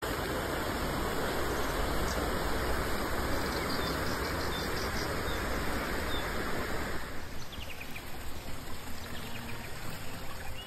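Fast mountain river rushing steadily. About seven seconds in the rush drops away, leaving a quieter background with a few bird chirps.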